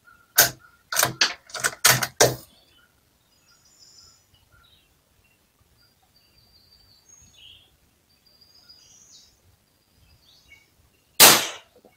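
A single sharp shot from a Ruger Precision Rimfire .22 LR rifle about eleven seconds in, with a short echo trailing it. Before it comes a quick run of about half a dozen clicks and knocks in the first two seconds, then faint bird chirps.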